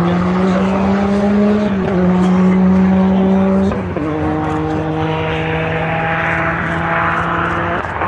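Big engine of a vintage estate car running hard as the car accelerates, a deep steady note that steps down in pitch at gear changes about two and four seconds in.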